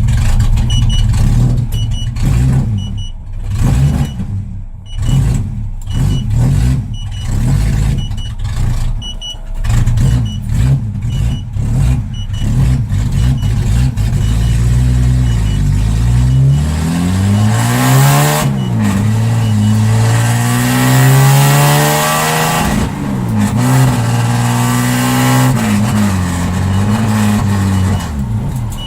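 Jaguar XJ6 Series 1's XK straight-six running with no exhaust fitted, loud and uneven at low speed for the first half. It then accelerates hard, its pitch climbing and dropping back several times as it goes up through the gears.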